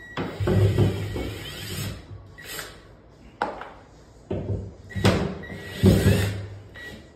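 Cordless drill boring into drywall in several short bursts, the bit grinding through the gypsum board with brief pauses between.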